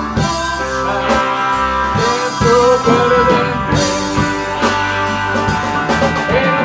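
Rock band music: a lead melody that bends in pitch over bass and steady drum hits.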